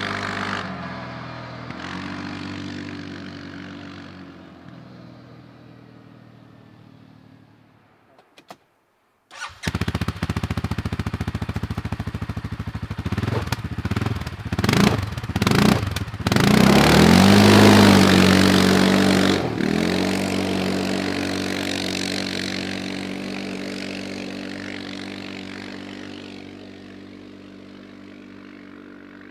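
CFMOTO CForce 520L quad's single-cylinder engine running and fading as it moves away. After a brief silent cut about nine seconds in, it comes back loud and close, revs in several short bursts, then accelerates hard and fades slowly as it drives off.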